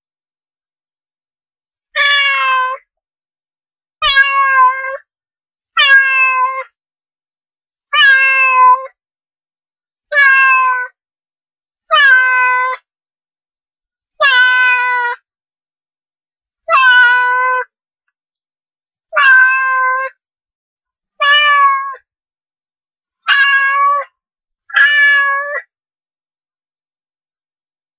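A domestic cat meowing over and over: about a dozen meows, each under a second long and spaced roughly two seconds apart, separated by silence.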